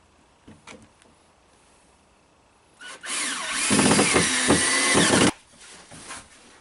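A power tool running for a little over two seconds, its pitch wavering as it works, then stopping abruptly; a couple of light knocks come before it.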